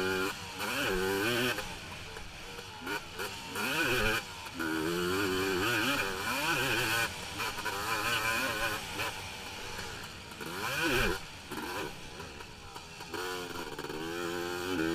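A 450-class racing quad's single-cylinder four-stroke engine, heard from a camera mounted on the quad, revving up and falling off over and over as the throttle is worked, with brief throttle cuts every couple of seconds.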